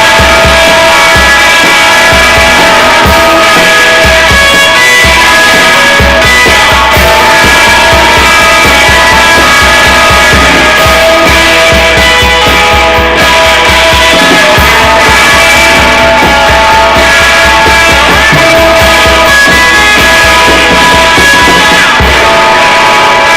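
Loud, dense psychedelic rock band recording: guitars holding sustained tones over a steady drum pulse, with no breaks.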